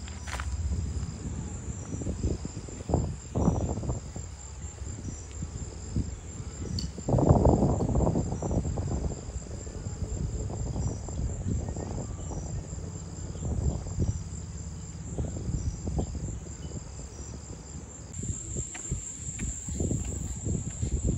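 Insects chirping outdoors: a steady high-pitched trill with a second insect pulsing in repeated trains about once a second. Low rumble and scattered thumps sound underneath, with a louder stretch of rumble about seven seconds in.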